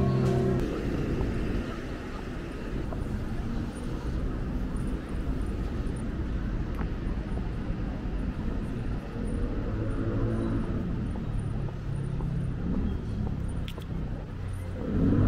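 Outdoor city street ambience with a steady low rumble of road traffic.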